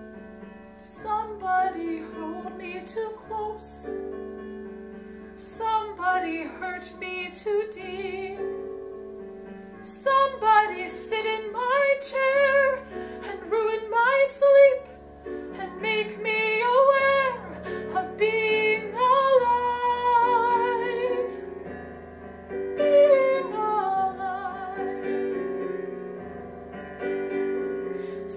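A woman singing a musical-theatre ballad solo over piano accompaniment, with several long held notes.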